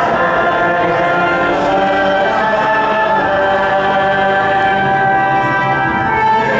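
Choir singing, with long held notes.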